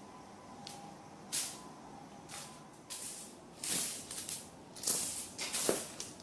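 A cat at play making a series of short scratchy rustles, about eight of them, growing louder and closer together in the second half.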